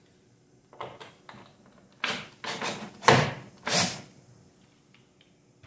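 A wood screw being turned deeper into a wooden window sill with a hand screwdriver, sinking it below the surface for a plug: a series of short, scratchy turns, loudest and closest together in the second half.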